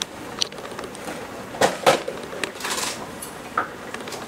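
Cardboard pasta box and the plastic tray inside it being handled: crinkling and rustling with scattered sharp clicks, the loudest two close together about one and a half seconds in.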